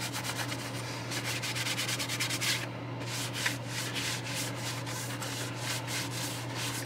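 Paper towel rubbing back and forth over a large plastic model-kit part, wiping off a thinned enamel panel-line wash (black panel liner thinned with mineral spirits). The strokes come quickly and close together for the first couple of seconds, then more sparsely.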